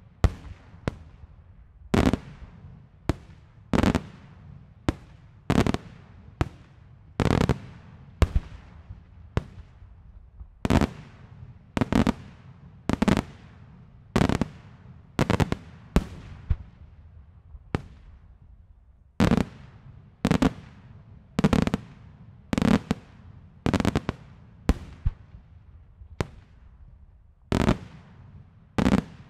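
Daylight fireworks shells bursting overhead in a rapid, irregular series of sharp bangs, somewhat more than one a second. Each bang trails off in an echoing rumble.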